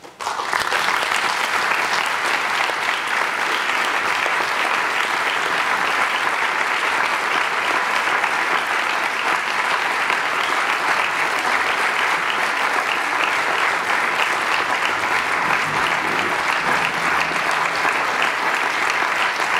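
Concert audience applauding, breaking out all at once right as the music stops and then keeping up steadily.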